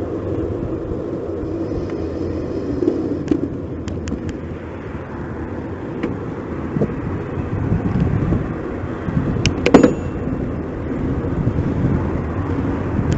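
Riding noise from a camera carried on a moving bicycle: steady rumble of the ride on the road, with a few sharp clicks and knocks scattered through it, the loudest a little under ten seconds in.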